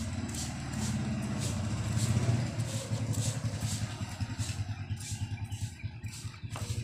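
Plastic trigger spray bottle spritzing liquid fertilizer onto plant leaves: a short hiss with each squeeze, about two a second. Under it runs a low engine rumble, loudest about two seconds in.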